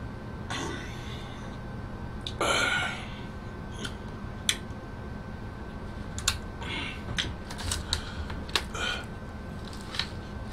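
Pizza being eaten close to the microphone: chewing with crunches of crust and sharp mouth clicks, with a louder short hiss about two and a half seconds in. Near the end comes paper crinkling as a slice is pulled out of the pizza box.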